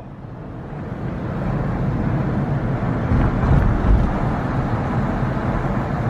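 A car driving along, its steady road and engine noise growing louder over the first couple of seconds.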